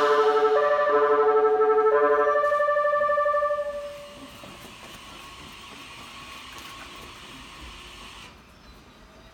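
Train Suite Shiki-shima sounding its musical multi-note horn: several held chords that step through a short melody, fading out about four seconds in. A steady hiss from the slowly moving train follows and stops abruptly near the end.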